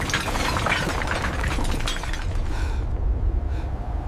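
Collapse of rubble and debris: dense crashing and cracking breakage over a deep, continuous rumble, thickest in the first two seconds and thinning after.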